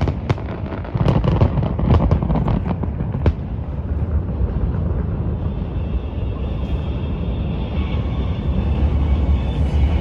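Steady low rumble of wind buffeting the microphone outdoors, with a few sharp cracks in the first few seconds.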